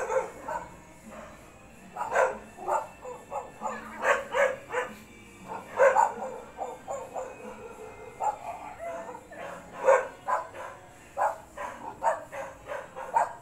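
A dog barking in many short, irregular bursts.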